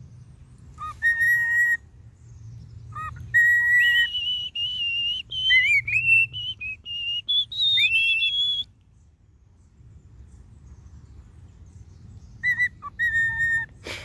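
Male cockatiel whistling its courtship song: held whistled notes, then a quick run of higher, gliding notes, a pause of a few seconds, and a few more whistles near the end.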